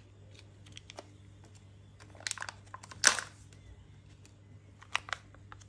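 Light clicks and crinkles of thin plastic packaging from a Kinder Joy egg being handled, with a sharper crackle about three seconds in.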